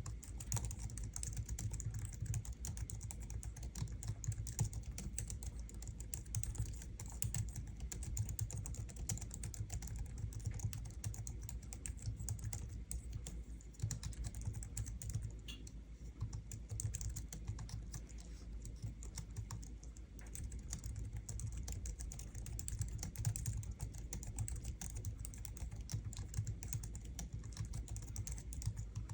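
Steady, continuous typing on a Logitech MX Keys keyboard, a low-profile scissor-switch keyboard, giving soft, dense key clicks.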